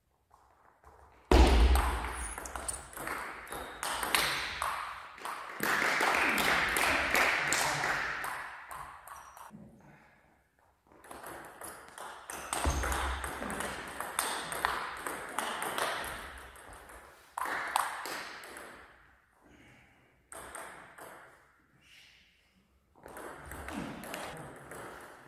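Table tennis rallies: the plastic ball clicking in quick alternation off the players' bats and the table, echoing in a sports hall, with short pauses between points.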